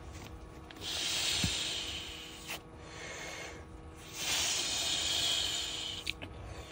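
A person blowing by mouth into the valve of an inflatable air mattress to inflate it: two long breathy blows of about two seconds each.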